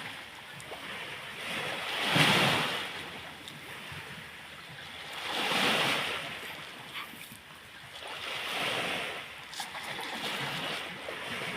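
Small waves washing onto a sandy shore, each one swelling and fading about every three to four seconds.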